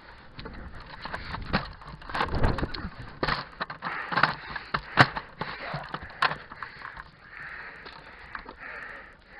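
Irregular clicks, knocks and scuffs of someone moving about and handling gear, with one sharp click about five seconds in, then puffs of breathing close to the microphone near the end.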